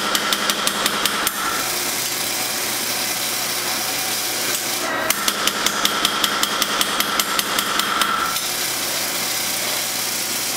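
Power hammer pounding a red-hot steel blade blank in two runs of rapid, evenly spaced blows, about five or six a second. The first run stops about a second and a half in, and the second runs for about three seconds in the middle. A steady hum carries on between the runs.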